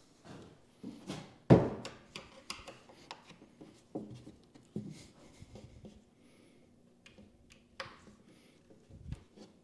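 Knocks and rubbing from handling the wooden panels of a ready-to-assemble cabinet, with one sharp knock about one and a half seconds in.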